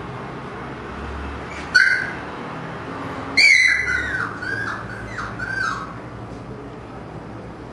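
Siberian husky puppies yelping during play-fighting: a short high yip about two seconds in, then a louder cry that falls in pitch and breaks into a run of short yelps, dying away about six seconds in.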